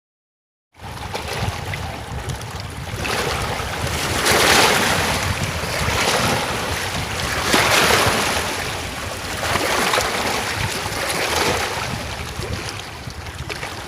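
Rushing water from a waterfall, with wind rumbling on the microphone, swelling and easing about every three to four seconds. It starts abruptly just under a second in.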